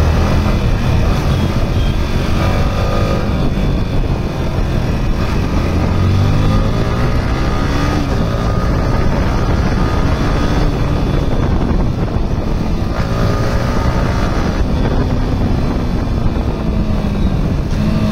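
Yamaha R15M's single-cylinder engine pulling hard as the bike accelerates, its pitch climbing several times and dropping back at each gear change, with wind rush over the bike.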